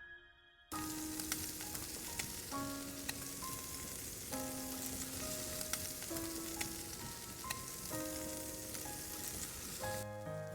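Food sizzling as it cooks, a steady hiss dotted with small crackles that starts abruptly about a second in. A slow melody of single held notes plays over it.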